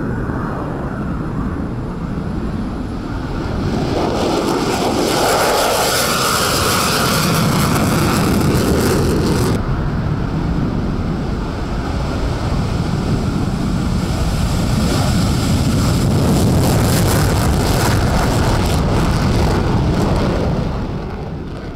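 F-35 Lightning II fighters taking off, with the jet noise of the single afterburning turbofan loud and rushing. It swells twice as jets pass, changes abruptly about ten seconds in, and fades away at the end.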